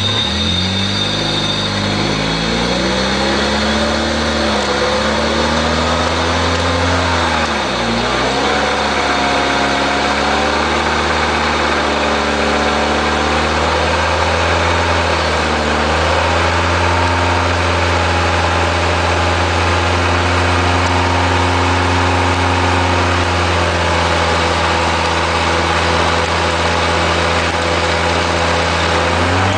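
Car engine running in gear with a front wheel removed, spinning the bare brake disc and hub. The engine speed dips and rises a few times in the first half, then holds steady.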